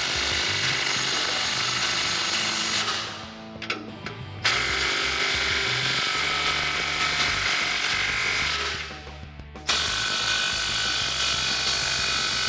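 Cordless impact wrench with a 15 mm socket hammering exhaust band-clamp bolts tight, in three runs of several seconds each with short pauses between. This is the final full tightening of the clamps so the pipes can't move.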